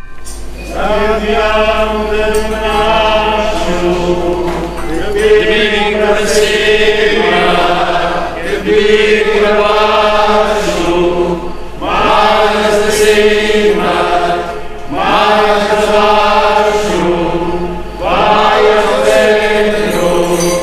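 A group of people singing a slow song together, in phrases of about three to four seconds with short breaks, over a steady low hum.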